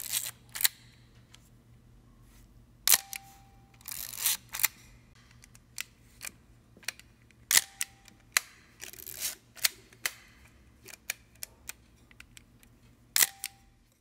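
Camera shutter clicks at irregular intervals, about a dozen in all, a few of them followed by a short beep. A faint low hum underneath.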